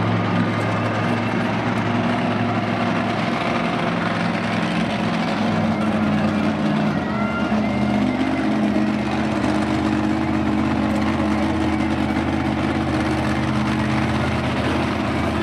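Crushstation monster truck's V8 engine running loud and steady as the truck drives and turns on the pavement, its pitch stepping up a little about halfway through.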